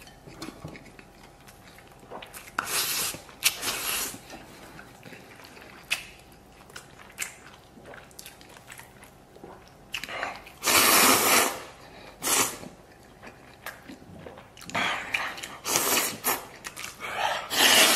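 A person eating noodles noisily: quiet chewing broken by loud slurps, a few early on, a long loud one about ten seconds in, and a quick run of slurps near the end.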